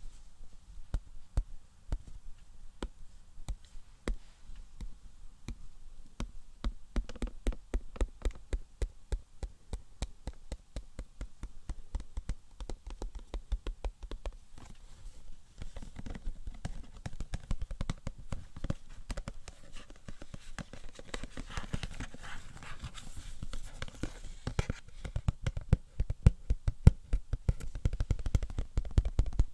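Rapid tapping on hard objects, many light taps a second, close to the microphone. The taps grow louder and heavier near the end.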